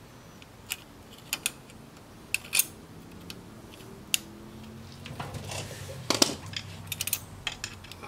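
Light metallic clicks and clinks of hand tools and the steel lock washer being worked at a forklift hub's axle nut, a single click every second or so, then a quicker run of clinks with some rustling from about five seconds in.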